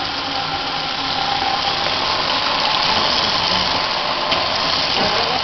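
Water running steadily from a kitchen tap into the sink.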